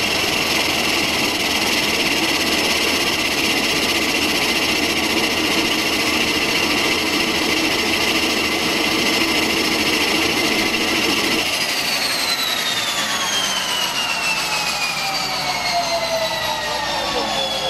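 Cessna Caravan's PT6A turboprop engine running at ground idle with a steady high turbine whine. About eleven or twelve seconds in, the lower engine noise drops away abruptly and the whine falls steadily in pitch as the turbine spools down after shutdown.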